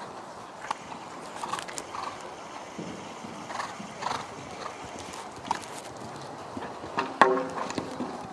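Hoofbeats of a cantering horse on an outdoor arena surface, a steady run of muffled strides. About seven seconds in comes a brief, loud pitched sound.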